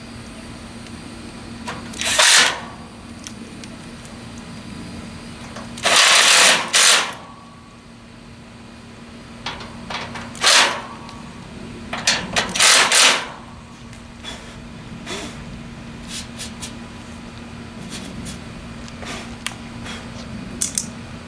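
Cordless power drill-driver running in four short bursts of a second or less, driving screws or bolts, with small clicks between and a steady low hum underneath.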